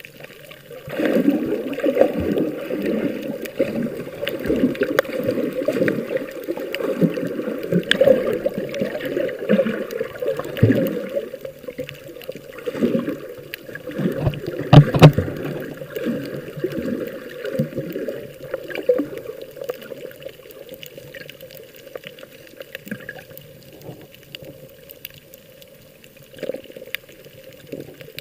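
Sea water sloshing and splashing close to the microphone in irregular surges. It is strongest over the first twenty seconds, with one loudest splash about halfway through, then dies down to a softer lapping.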